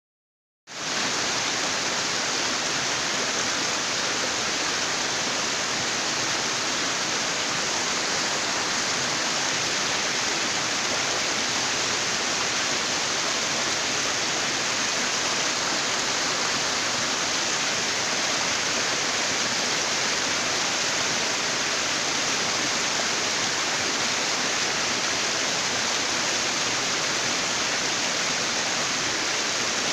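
Waterfall: a steady, even rush of falling water that begins under a second in.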